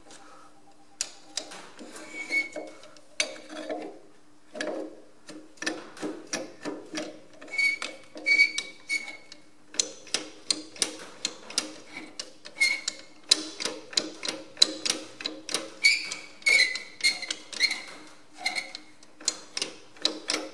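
Steel spanner clicking and clinking on the draft control spring adjuster of a Ferguson FE35 tractor as it is turned in short strokes, taking up the play in the spring. An irregular run of sharp metal clicks, a few a second, some ringing briefly.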